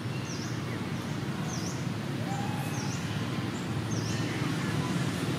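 A small bird's short high chirp, repeated about every second and a quarter, over a steady low outdoor rumble.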